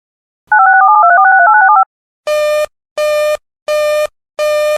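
Emergency Alert System data burst: a warbling electronic tone that hops rapidly between pitches for just over a second, starting about half a second in. From about two seconds in, a buzzy electronic alert beep sounds four times, about 0.7 s apart.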